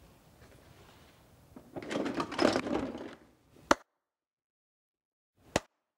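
Hard plastic toy carrying case being folded closed: plastic parts clattering and rubbing for about a second and a half, then a sharp click, and a second sharp click about two seconds later.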